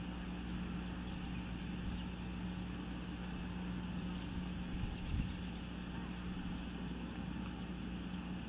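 Steady low hum with hiss from the eagle nest camera's outdoor microphone, with one brief low thump about five seconds in.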